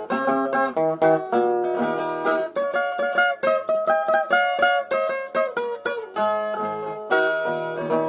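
Brazilian ten-string viola played alone in an instrumental interlude: a picked melody of quick single notes over low bass strings, with a faster run of picking in the middle.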